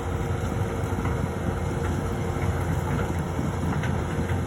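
Doosan excavator's diesel engine running steadily, a continuous low rumble.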